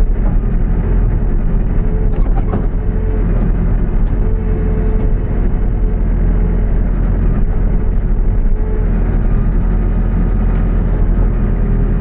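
New Holland B95B backhoe loader's diesel engine running steadily under work, with a higher whine that comes and goes and a brief knock about two and a half seconds in.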